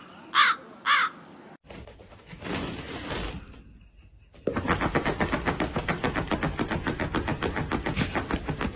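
Three short harsh caw-like animal calls, then after a break a fast, even rattling pulse, about eight a second, lasting about five seconds.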